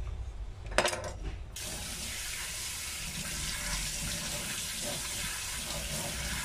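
A short knock, then about a second and a half in a kitchen tap is turned on and runs steadily into a stainless steel sink, splashing over cut lotus root being rinsed under it.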